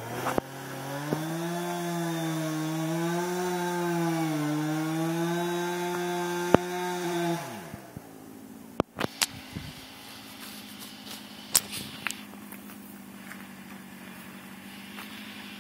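Husqvarna 455 Rancher two-stroke chainsaw running at high revs, its pitch wavering as it cuts into an oak tree. About seven seconds in the engine drops off, and after that there is only a faint steady engine note with several sharp knocks.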